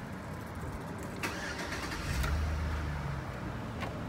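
A 2005 Chevrolet Avalanche's 5.3L Vortec V8 starting: the engine catches about two seconds in and runs at a steady idle, easing slightly after the first second of running.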